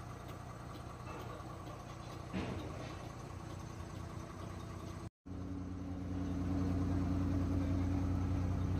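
Ashok Leyland six-wheeler truck's diesel engine idling, a steady hum heard from inside the cab. It drops out briefly a little past halfway, then comes back louder.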